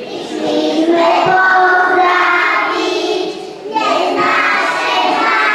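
A group of young children singing together, two sung phrases with a short break for breath about three and a half seconds in.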